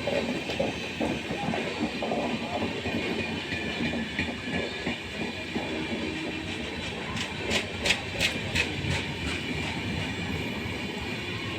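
Train running along the track, a steady rattle with a quick run of sharp clacks of wheels over rail joints about seven to nine seconds in.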